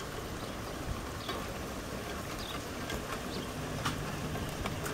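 Steady rain falling, with a few sharp drip clicks.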